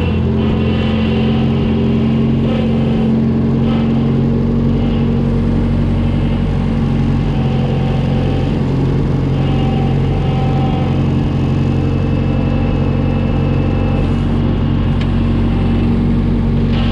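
New Holland L775 skid steer engine running at a steady speed under load, with faint higher whines coming and going.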